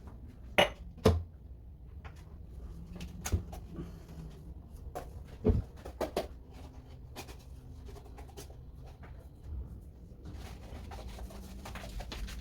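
Scattered knocks and clatters of household floor cleaning, with two loud knocks about half a second apart near the start.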